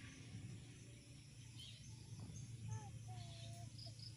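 Faint outdoor ambience: birds chirping, with a few short whistled notes in the middle and a quick run of high chirps near the end, over a steady low hum.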